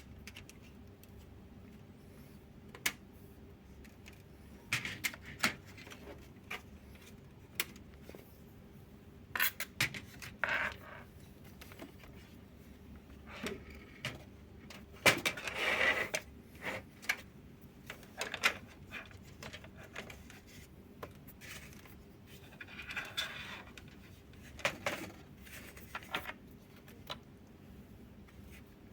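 Scattered clicks, taps and rustling of small objects and packaging being handled, with a longer scraping rustle about fifteen seconds in.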